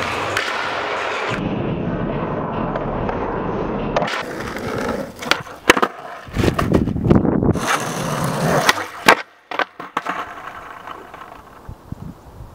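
Skateboard rolling steadily on flat ground, then from about four seconds in a run of sharp pops and clacks of the board striking the ground, quieting near the end.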